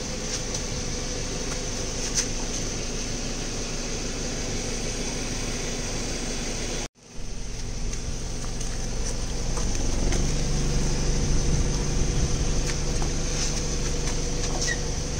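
Car engine idling steadily, with a few faint clicks. The sound cuts out for a moment about seven seconds in, and from about ten seconds in a lower hum joins and the engine gets slightly louder.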